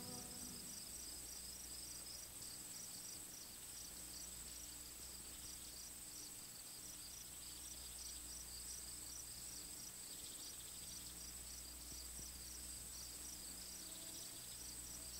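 Very faint background noise between songs: a steady low hum and hiss, with a faint, rapid, high-pitched pulsing running through it.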